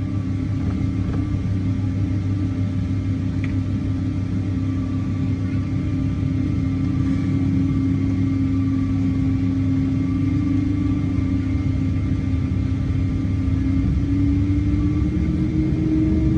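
Airliner jet engines running with a steady, loud rumble and a droning tone that slowly rises in pitch near the end, as the engines spool up.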